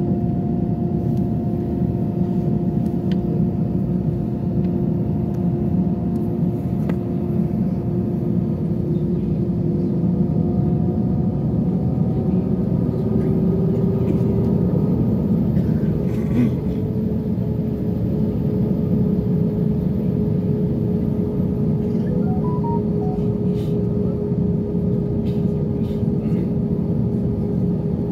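Jet airliner cabin noise while taxiing: a steady rumble from the engines at low thrust, with a steady hum whose pitch rises slightly about halfway through.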